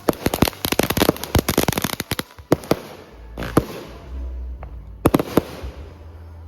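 Fireworks going off: a rapid run of sharp cracks and pops for about two seconds, then a few scattered louder pops, tailing off near the end.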